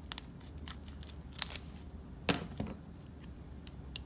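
Scattered sharp clicks and crackles, about half a dozen, the loudest a little past two seconds in, from hands handling the glitter and slime as holographic glitter is added to freshly made slime.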